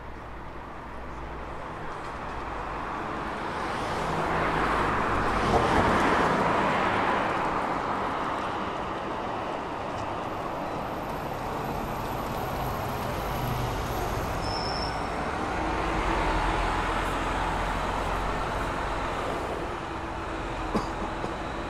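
Street traffic: a vehicle passes close by, swelling to its loudest about five to six seconds in and fading, then the steady noise of traffic, with another vehicle passing around sixteen seconds.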